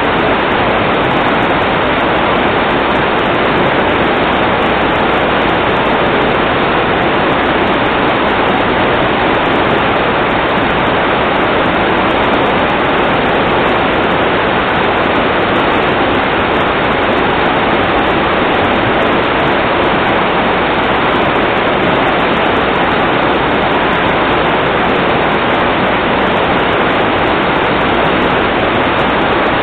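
Loud, steady rush of water that holds unchanged with no breaks.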